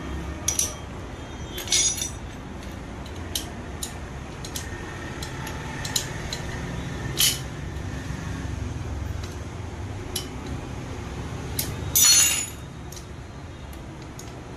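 Scattered metallic clinks and taps of hand tools and metal parts against a scooter engine's cylinder head during assembly, with a short louder clatter about twelve seconds in.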